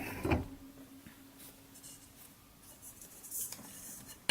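Faint scratching and rubbing of small grommets being picked at and handled on a workbench, with a few short scraping bursts.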